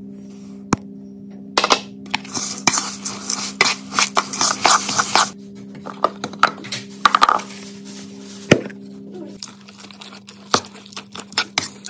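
Dry seeds and rolled oats poured into a bowl, giving a hissing rattle for about five seconds. Then a metal spoon stirs the damp seed-and-oat bread mix, clicking and scraping against the bowl.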